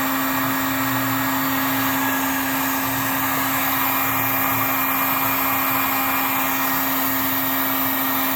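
Electric heat gun running steadily, its fan motor humming under a wide hiss of blown air, heating resin-soaked exhaust repair tape on a muffler pipe patch to melt and cure the resin.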